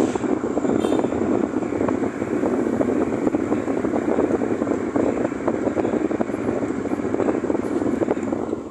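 Wind sound effect: a continuous gusty rushing noise with crackles, its loudness swelling and dipping, starting to fade near the end.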